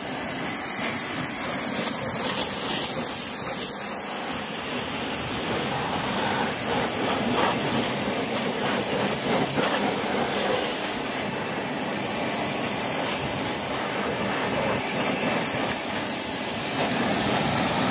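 Pressure washer (jet wash) spraying a steady, hissing jet of water onto an engine block.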